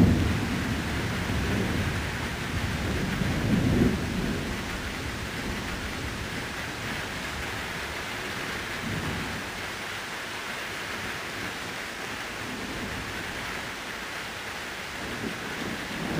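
Steady rain falling through a thunderstorm, with thunder rumbling. One rumble fades at the start and another swells to a peak about four seconds in, followed by quieter rain with a faint rumble in the middle.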